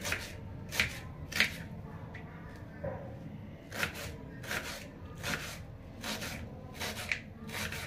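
Kitchen knife slicing a red onion on a plastic cutting board: a series of crisp cuts, each stroke ending in a tap on the board, about one to two a second with a short pause in the middle.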